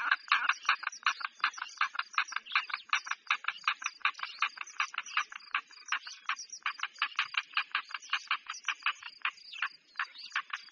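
A fast, even train of short rasping animal calls, about six or seven a second.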